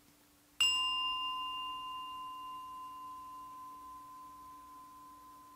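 A small singing bowl struck once with a wooden striker about half a second in, then ringing in a clear steady tone. Its higher overtones die away within a few seconds while the main tone fades slowly and is still sounding at the end.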